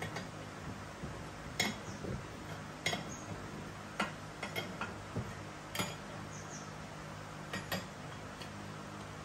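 Open-ended spanner clinking on the screw of a differential case spreader as it is turned back to release the spread on the differential case: a handful of sharp metal clicks, one to two seconds apart.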